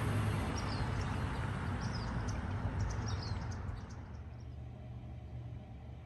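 Outdoor ambience: a steady low rumble of traffic, with a few short bird chirps. The rumble drops away about four seconds in, leaving a fainter steady hum.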